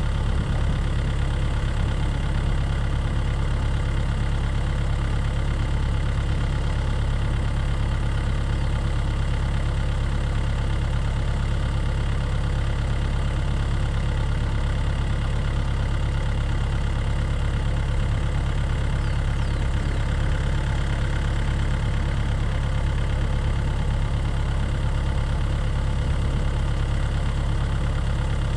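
Tractor engine running steadily at a constant speed, driving an irrigation pump, with a heavy low hum.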